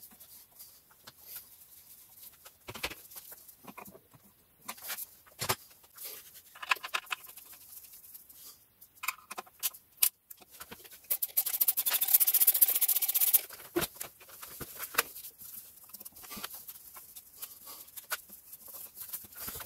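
Hand work with tools and parts at the engine: scattered clicks, knocks and scraping, with a run of rapid clicking lasting about two seconds near the middle.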